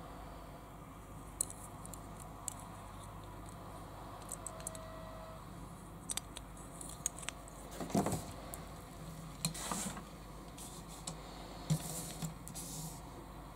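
Handling sounds from a small diecast toy car being turned in the fingers: scattered light clicks and taps over a steady hiss, with a few louder knocks and rubs around the middle and a sharp click near the end as the car is set down on the table.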